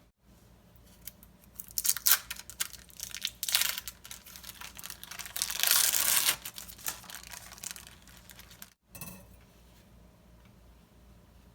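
Close-miked food-preparation sounds: a flurry of crisp clicks, crinkles and rustles, loudest around the middle, settling to quiet room tone near the end.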